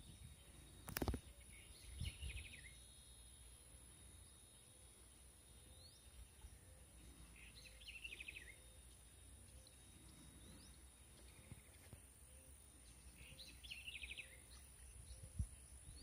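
Faint countryside ambience: a bird calls three times, each call a short burst of rapid repeated notes, over a steady high-pitched hiss and a low wind rumble. A single sharp thump comes about a second in.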